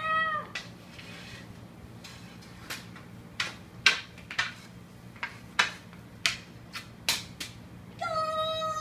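A string of about ten sharp knocks at uneven intervals, like a hockey stick striking a puck or ball on a hard floor. A cat gives a short meow at the start and starts a long, steady meow near the end.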